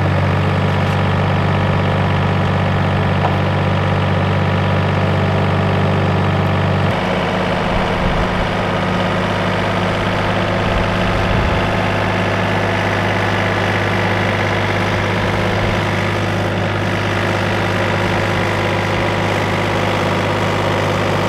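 Yanmar mini excavator's diesel engine running steadily while it hoists a ute cab on its boom. About seven seconds in, the engine's note changes abruptly, then holds steady again.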